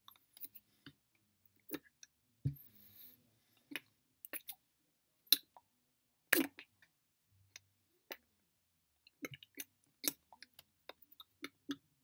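Scattered mouth clicks and lip smacks, with hands brushing against clothing, from a man gesturing silently with his hands. A dull thump comes about two and a half seconds in, and the sharpest clicks a little past five and six seconds.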